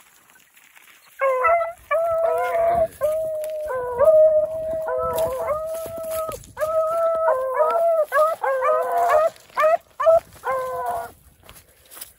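Beagles baying while running a rabbit's scent trail. The calls are long, drawn-out bawls mixed with short chops; they start about a second in and stop near the end.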